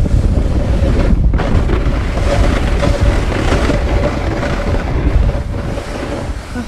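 Loud, steady rushing noise, heaviest in the bass, with a faint steady tone running through it; it eases off slightly near the end.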